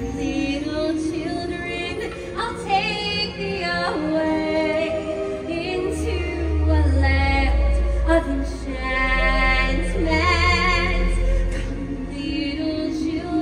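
A woman singing held, wavering notes over amplified backing music with deep bass notes in a live stage show.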